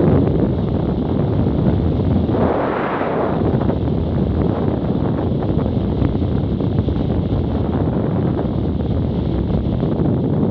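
Wind buffeting the microphone of a camera on a BMW F800GS motorcycle riding at road speed, a steady low rush with the ride's rumble underneath. A brief swell of brighter hiss comes a couple of seconds in.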